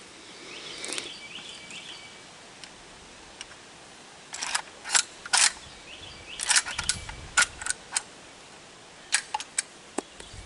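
Sharp metallic clicks in irregular clusters as 12-gauge shells are pushed into the magazine of a Century Arms PW87 lever-action shotgun.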